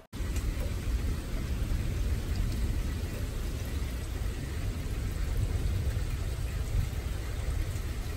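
Steady rain falling on a concrete walkway and lawn, with a constant low rumble underneath.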